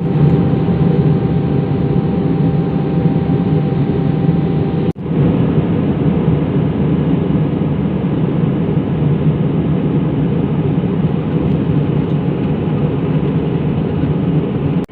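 Steady low drone of an airliner's engines and airflow heard inside the passenger cabin, with a brief break about five seconds in.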